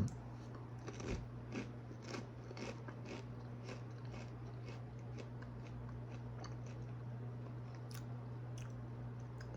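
Rice crisps being chewed with a crunch, about two chews a second, growing fainter as they break down. A steady low hum runs underneath.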